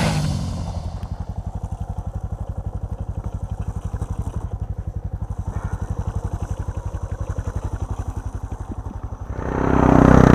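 Motorcycle engine idling with an even, rapid low pulse. Near the end a much louder sound swells up over it.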